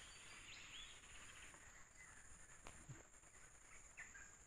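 Near silence: a faint, steady high-pitched insect drone with a few faint bird chirps.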